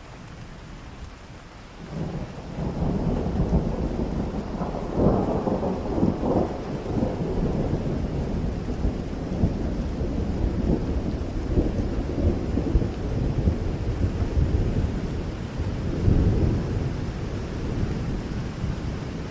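Steady rain with a long rolling thunderclap that sets in about two seconds in, swells to its loudest a few seconds later and keeps rumbling, swelling again near the end.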